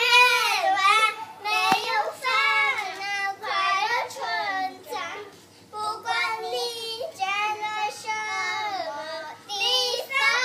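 Young children singing a song in high voices, phrase by phrase with short breaks, with a single sharp tap about two seconds in.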